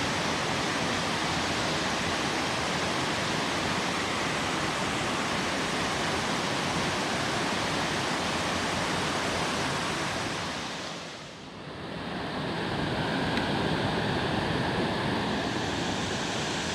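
Loud, steady rush of a creek waterfall. It fades briefly about two-thirds of the way through, then comes back at full strength.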